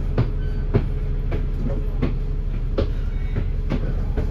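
Dennis Enviro500 MMC double-decker bus under way, a steady low engine and road rumble with sharp knocks and rattles every half second to second.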